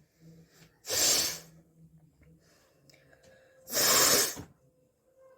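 A person forcing out two loud, hissing blasts of breath about three seconds apart, each lasting under a second.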